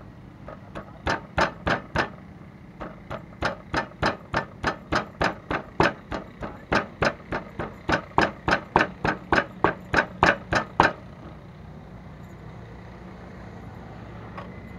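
Stone pestle pounding ingredients in a wooden mortar, sharp knocks at about three a second with a brief pause about two seconds in, stopping about eleven seconds in.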